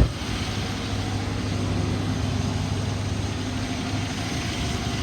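2011 Dodge Charger PPV's 5.7-litre Hemi V8 idling rough with a steady ticking, tapping sound from the motor and a steady misfire, the sign of an internal engine fault.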